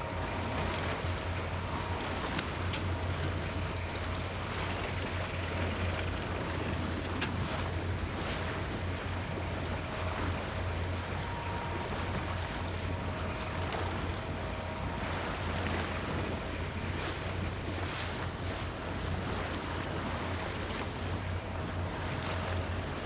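Long-tail boat engine running steadily, with water and wind noise on the microphone.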